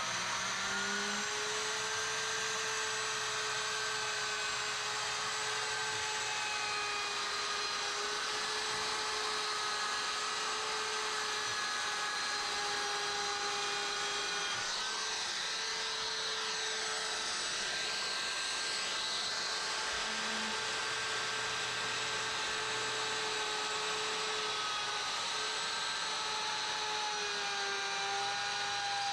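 Electric wood router spinning up to speed and then running steadily with a high whine, its pitch dipping slightly now and then as the bit cuts along the wooden window ledge to flatten it.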